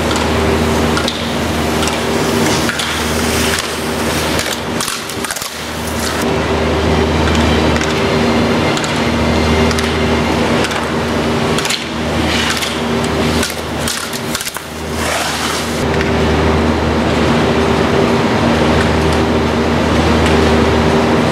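Steady low machine hum with a constant hiss, swelling and fading every few seconds, typical of the air-handling and cooling plant of an indoor ski hall.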